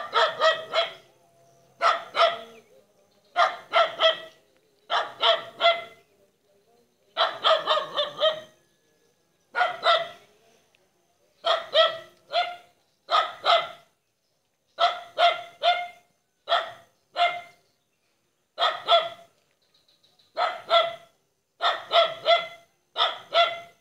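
A dog barking in quick runs of two to four short, sharp barks, a new run every second or two.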